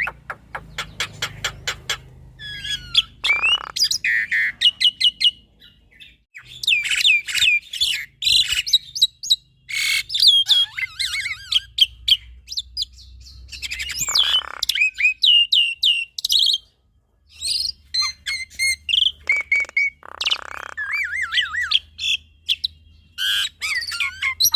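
Black-winged myna and Javan myna singing together: rapid runs of sharp chips, whistled notes sliding up and down, and warbling phrases, with a couple of brief pauses.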